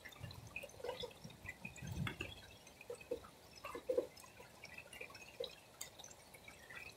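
Rain easing to a gentle fall, heard as irregular dripping and pattering of water drops, with a few louder drops about two and four seconds in.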